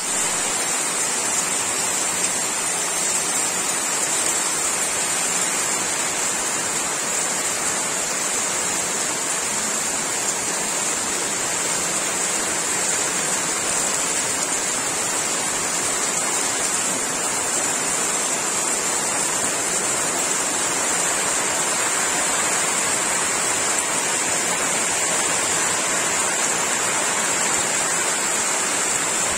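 Heavy monsoon rain falling on tree leaves and a waterlogged grassy yard, a steady, even hiss with no letup.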